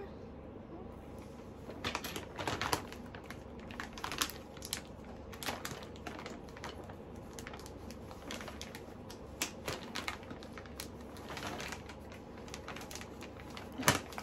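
Clear plastic vacuum storage bag being handled, the plastic crinkling, with irregular clicks as its zip seal is worked along by hand. The loudest click comes near the end.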